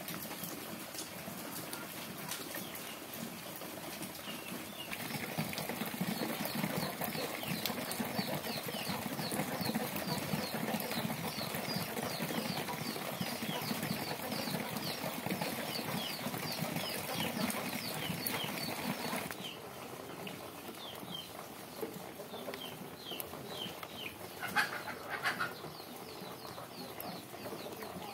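Steady rain falling and dripping on wet walls and ground, heavier through the middle and easing abruptly past halfway. Birds chirp over it in quick repeated short notes, with a few louder calls near the end.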